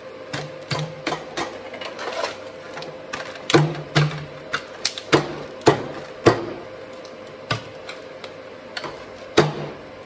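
Irregular metallic clinks and knocks of mild-steel weld-on fittings being handled and pressed onto an exhaust pipe on a steel welding table, a few louder knocks among them, over a steady hum.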